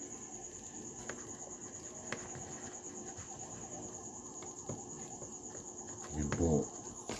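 A continuous high-pitched pulsing trill, as of a cricket, with a few faint small clicks from reel parts being handled, and a brief murmur of a man's voice near the end.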